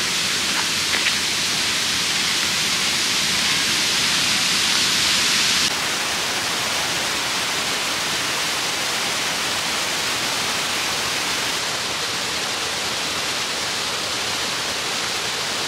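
Steady rushing of falling water from a waterfall and a stream cascading over rocks. The sound steps down slightly about six seconds in and changes again about twelve seconds in. A couple of faint clicks come near the start.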